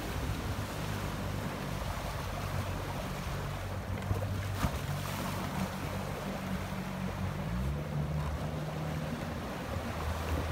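Outboard motor of an inflatable boat running steadily, briefly revving up about three quarters of the way through and then settling back, over wind on the microphone and the splash of choppy waves.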